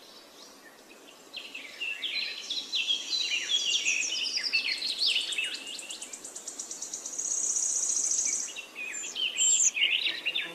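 Birds chirping in quick, falling notes over a high, fast-pulsing insect trill, the trill loudest in the second half.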